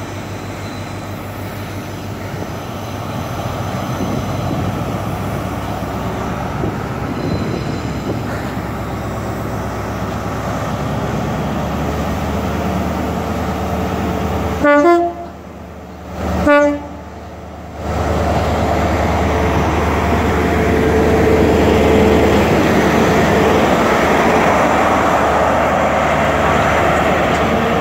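InterCity 125 (HST) Class 43 diesel power car pulling out along the platform, its engine running steadily and growing louder as it draws near. Two short blasts of the train horn, about a second and a half apart, come about halfway through, in answer to a wave.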